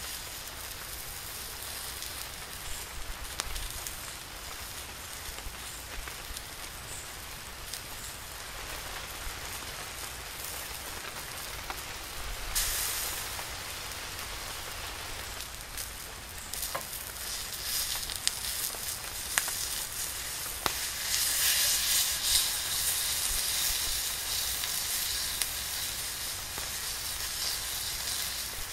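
Tomahawk steak sizzling on a hot cast iron skillet, a steady hiss that grows louder about halfway through and louder again in the last third. Sharp pops and crackles from the wood fire under the pan are scattered through it.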